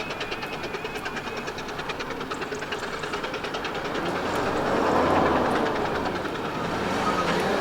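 Miniature 15-inch gauge trains on the move: a fast, even clicking beat, then a louder rushing rumble that swells about four to five seconds in as a train runs past.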